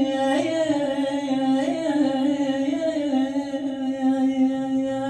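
A woman's unaccompanied voice singing an Iraqi song, drawing out long wordless notes with small ornamental turns and waverings.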